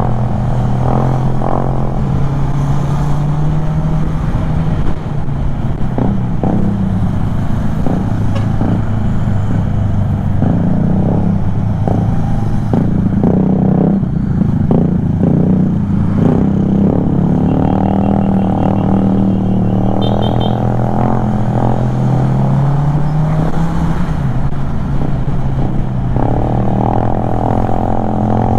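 Kymco Xciting 400 scooter's single-cylinder engine running under way on the road, with a steady hum whose pitch drops and rises a few times as the throttle changes, over road and wind rush.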